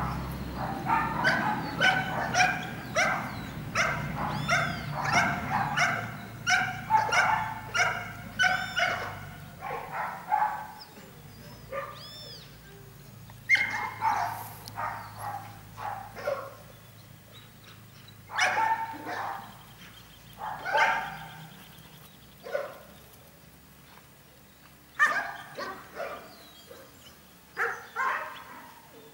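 Dog barking and yipping, in rapid short barks about twice a second for the first ten seconds, then in scattered single barks and pairs.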